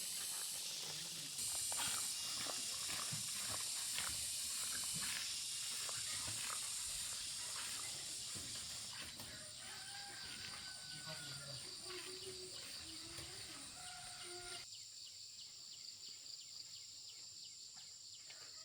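Outdoor rural ambience: insects shrilling steadily at a high pitch, with a few short bird calls in the middle. The low background cuts out suddenly about two-thirds of the way through.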